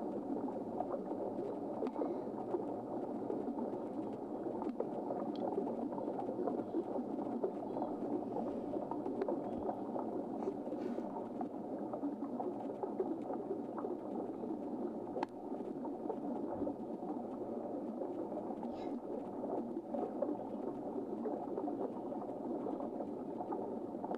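Steady, muffled rushing water noise with a few faint clicks.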